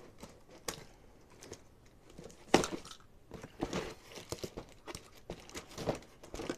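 Box cutter blade slitting clear packing tape and scraping along a cardboard box, with crinkling of the tape and cardboard in irregular short strokes; the loudest rasp comes about two and a half seconds in.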